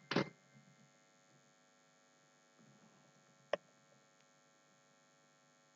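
Near silence with a faint steady electrical hum, broken by one sharp click about three and a half seconds in.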